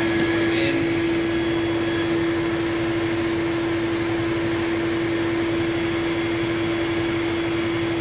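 Hoover Supremacy canister vacuum cleaner running steadily, a constant motor hum with a single held tone over an even rush of air.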